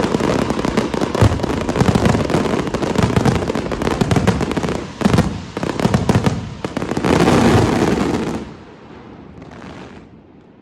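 Fireworks going off in a dense, rapid barrage of bangs and crackles that stops abruptly about eight and a half seconds in, leaving a faint fading hiss.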